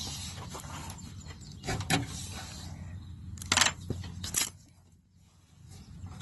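Hand work on a riding mower's deck linkage as a cotter pin is worked free: a few sharp metallic clicks and clanks over a low steady background, the last ones about three and four and a half seconds in.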